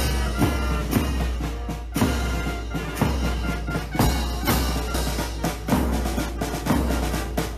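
Music with a steady drum beat and a heavy bass drum.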